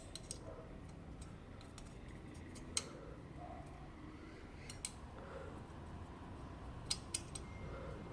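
Faint, scattered metal clicks of a hand tool tightening a small screw on a motorcycle's exhaust cover plate, a single click every couple of seconds, with a close pair near the end.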